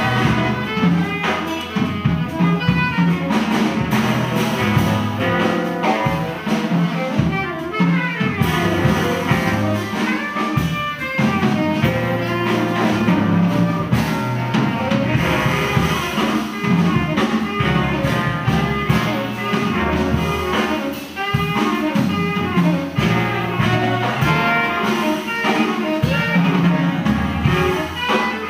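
Small jazz band playing live: a horn section of saxophones and trombone over piano, bass and drum kit.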